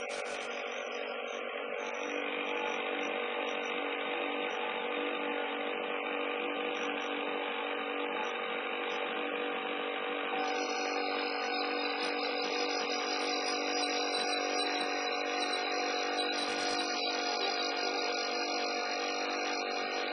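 Steady mechanical running of a machine, several steady tones together, with a higher whine joining about halfway through.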